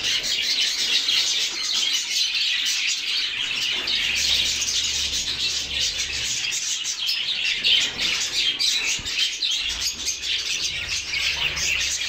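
Budgerigars chirping continuously, many high twittering calls overlapping.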